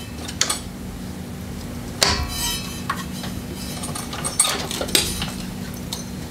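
Metal clinks and knocks as a snowblower belt is pulled off its pulleys with the spring tensioner held back, with the loudest clank, which rings briefly, about two seconds in.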